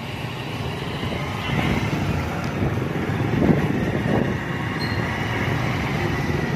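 Motorcycle-and-sidecar tricycle moving slowly through traffic: its small motorcycle engine running, mixed with road noise and street traffic, heard from inside the sidecar.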